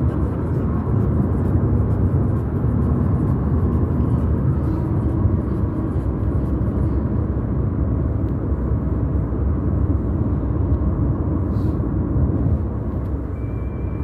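Steady low road rumble inside the cabin of a moving Honda car.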